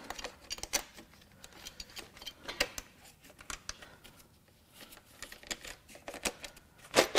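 Plastic valve cover of a BMW N26 four-cylinder being worked loose and lifted off the cylinder head: irregular light clicks, knocks and scrapes of plastic, with a louder clatter near the end.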